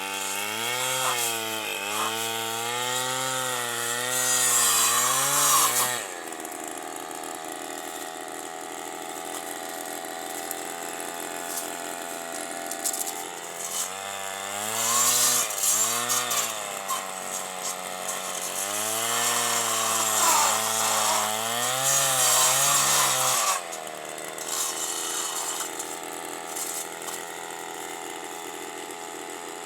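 Stihl FS 160 two-stroke brushcutter revving up and falling back twice. Between the bursts it runs steadily and more quietly. During each burst its chainsaw-toothed disc cuts through thorny branches.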